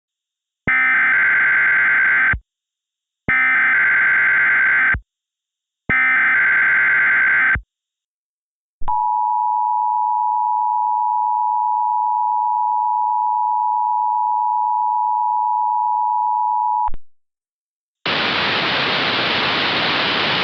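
Emergency Alert System tones: three identical bursts of the SAME digital header's data screech, each under two seconds, then the EAS attention signal, a steady two-tone 853/960 Hz tone held for about eight seconds with a click at each end. Near the end a hiss of static begins, leading into the alert message.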